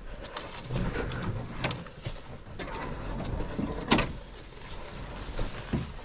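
Footsteps along a forest trail with irregular clicks, knocks and creaks from a canoe carried overhead on the shoulders, one sharper knock about four seconds in.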